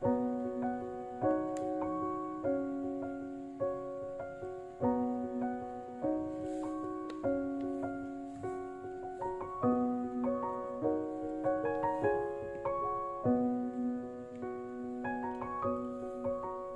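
Background piano music: a slow melody of single notes and chords, each struck and left to ring out and fade.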